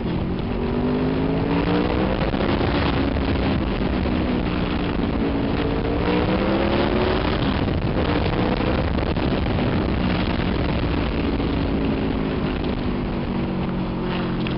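Honda VFR motorcycle's V4 engine running at road speed, its pitch rising and falling several times as the rider opens and eases the throttle in traffic, over a steady rush of wind and road noise.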